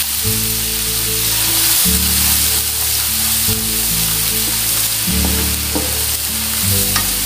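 Oil sizzling steadily as chopped shallots, garlic and ginger fry with whole spices in a nonstick wok, with a spatula stirring and scraping through them. Background music with low held notes changing about every second and a half plays underneath.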